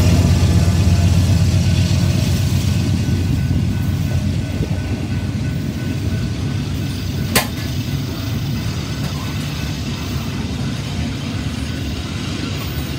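Loaded gravel freight cars rolling past on the track, a steady low rumble of steel wheels on rail. A diesel locomotive's engine drone fades out over the first few seconds, and there is a single sharp clank about seven seconds in.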